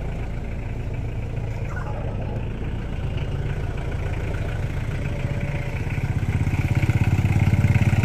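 Freshly overhauled Mitsubishi 4M40 2.8-litre four-cylinder diesel idling steadily and running smoothly, growing louder about six seconds in.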